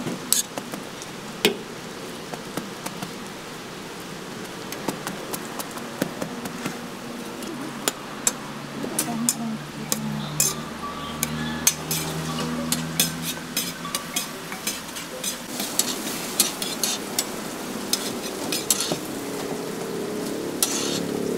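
Steady sizzle of food frying on a flat steel griddle, with metal tongs and a spatula clicking and scraping against the steel at irregular intervals.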